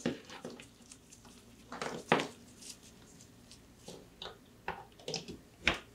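Power cord being handled and its plug pushed into a power strip socket: a few scattered soft knocks and clicks, the sharpest one near the end.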